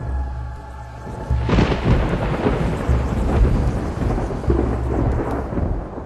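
A thunderclap sound effect about one and a half seconds in, rolling on as a long rumble that fades near the end, over a low pulsing bass drone.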